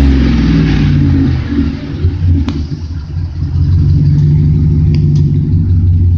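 Chevrolet Silverado 5.3-litre V8 through Flowmaster 40 series dual exhaust: the revs drop back toward idle about a second and a half in, then the engine picks up and holds a steady, louder exhaust rumble from about four seconds in.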